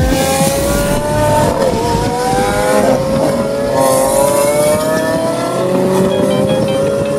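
Sports car engine pulling under acceleration: one sustained note that climbs slowly in pitch, with brief dips about a second and a half and three seconds in.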